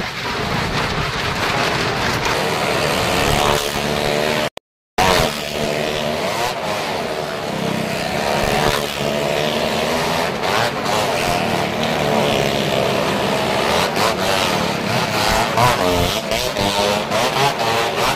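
Engines of a car and motorcycles riding round the vertical wooden wall of a well of death, revving with a pitch that rises and falls as they circle. The sound cuts out briefly about four and a half seconds in.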